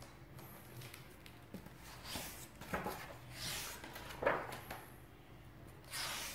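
A hardcover picture book being turned on a table and its cover and first pages flipped open: a handful of soft paper swishes and rustles, the sharpest a little after four seconds in.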